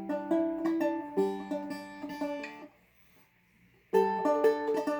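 Seagull Merlin M4 being fingerpicked: a run of single picked notes over a chord, a pause of about a second, then the pattern starts again near the end.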